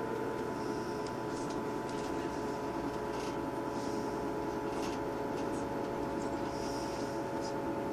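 Inside a Class 158 diesel multiple unit pulling away, its underfloor diesel engine and transmission running under power with a steady whine. Light clicks come now and then from the wheels running over pointwork.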